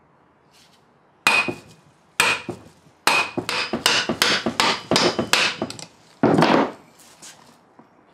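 Hammer blows on the metal parts of a BMW X5 E53 transfer case, struck to free the gear and chain. Two single sharp strikes with a short metallic ring are followed by a quick run of about nine blows at roughly three a second, then one longer, heavier clunk near the end.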